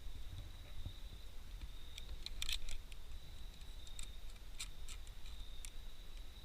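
A few light metallic clicks and rattles of climbing gear being handled as the climber readies to rappel, a cluster about two seconds in and more around four to five seconds, over a low wind rumble on the microphone and a faint steady high-pitched whine.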